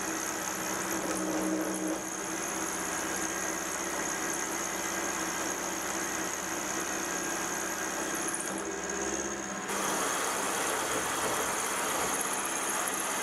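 Sieg X2.7L mini mill running an end mill through grey cast iron to cut a slot: a steady motor whine over the noise of the cut, which turns louder and rougher about ten seconds in.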